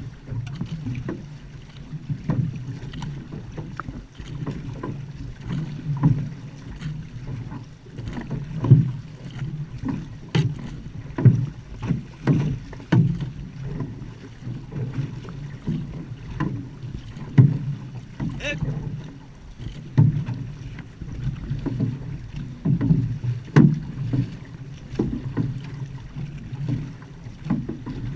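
Outrigger canoe (va'a) paddles pulling through the water in a steady rhythm, about one stroke a second, over a continuous low rush.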